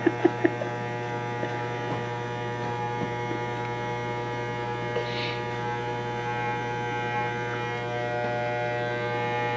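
Electric hair clippers buzzing steadily as they cut a small boy's hair around the ear. A few short, sharp sounds come right at the start, and the buzz grows a little louder near the end.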